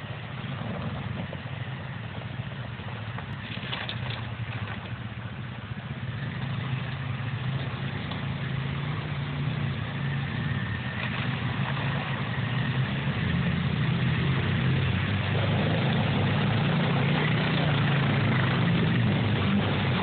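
Several ATV engines running, growing steadily louder as the quads approach; near the end the lead quad splashes through the creek water.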